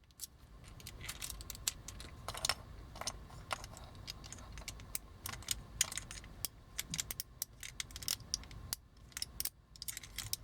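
Scattered small clicks and ticks of hard plastic and metal toy parts being handled and worked, as a small bar is worked loose from its square-peg mount in a vintage Transformers toy.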